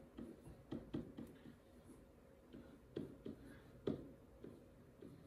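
Pen tapping and drawing on an interactive whiteboard as numbers and symbols are written: a string of light, irregular taps, the sharpest about three and four seconds in.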